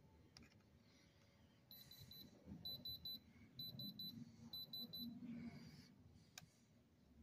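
Diamond Selector II thermal diamond tester beeping in quick groups of three or four high beeps, about one group a second, as its probe tip is held against a stone. A single sharp click comes near the end.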